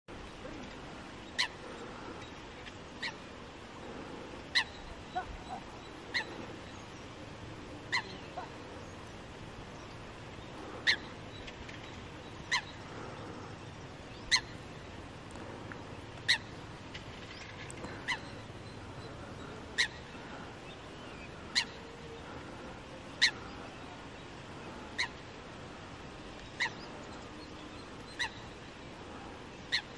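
A bird's short, sharp call repeated at an even pace, about every one and a half to two seconds, over a steady outdoor hiss.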